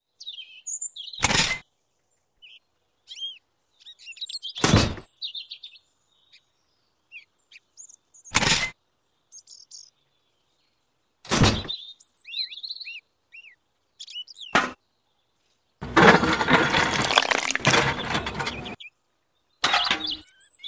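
Small birds chirping in short, rising and falling calls, cut by a handful of short sharp knocks about every three seconds. A denser noise lasting about three seconds comes near the end.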